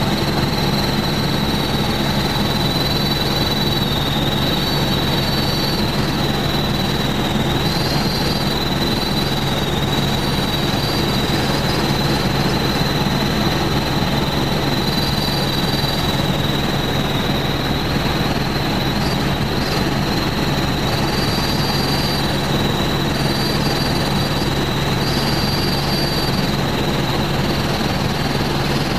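Helicopter in flight: steady engine and rotor noise with a low hum and a constant high-pitched whine.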